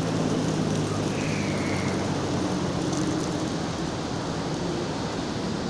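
Steady outdoor background noise with a low hum, typical of distant road traffic.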